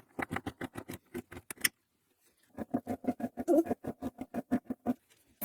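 Screwdriver driving screws to mount metal drawer slides: two runs of rapid clicking, about eight clicks a second, with a short pause between them.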